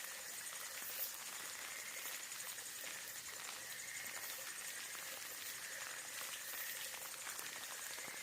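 Steady rain falling, with many small drops ticking and one slightly louder drop about a second in. A faint steady high tone runs behind it.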